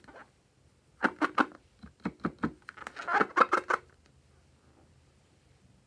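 A filled latex balloon being squeezed and handled: short clusters of rubbing sounds from the rubber about one, two and three seconds in, then little more.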